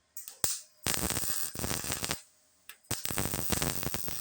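Short electric welding bursts on a sheet-metal truck bed patch panel: a brief zap, then two crackling welds of a second or more each, filling pinholes along the seam.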